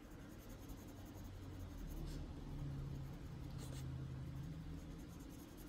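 Prismacolor coloured pencil shading on paper, a soft continuous scratching of pencil strokes.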